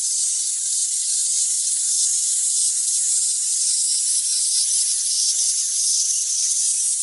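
A steady, loud high-pitched hiss like static or white noise.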